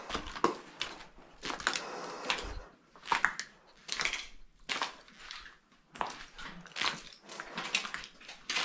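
Footsteps scuffing and crunching over debris on a littered floor, about one to two steps a second.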